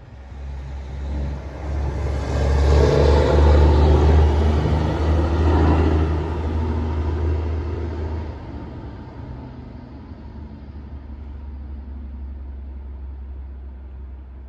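Heavy coal truck driving past: a deep engine drone and tyre noise that swell, peak about three to six seconds in, then fade as it moves away, leaving a faint rumble.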